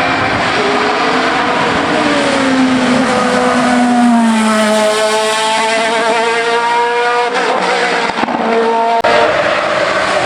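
Racing car engine at full throttle on a hillclimb: its note dips, then climbs steadily for a few seconds as the car accelerates, breaking off suddenly near seven and again near nine seconds in.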